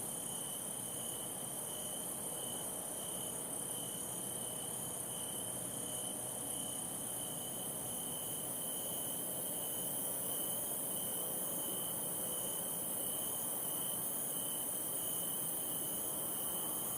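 Night insects chirring in a dense steady chorus: a high continuous shrill over a lower, pulsing trill. It cuts off suddenly near the end.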